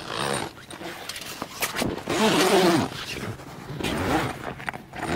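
A zipper being run along a fabric awning wall, with rustling fabric and a few sharp clicks; a brief voice-like sound about two seconds in.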